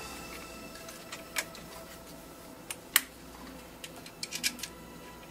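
Scattered sharp clicks and light knocks of hands handling an alternator and its wiring in a car's engine bay. The loudest click is about three seconds in, with a quick cluster of smaller ones a little later.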